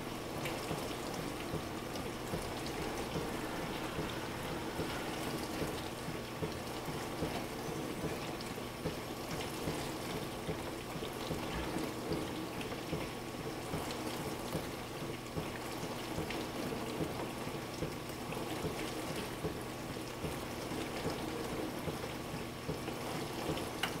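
Frigidaire LFBD2409LF2B dishwasher in the wash-heat step of its diagnostic test cycle: the wash motor hums steadily while water sprays and splashes inside the closed tub.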